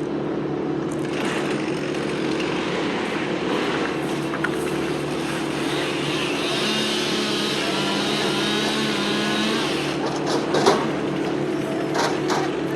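An engine running steadily. A wavering higher-pitched whine joins it for a few seconds in the middle, and a few sharp knocks come near the end.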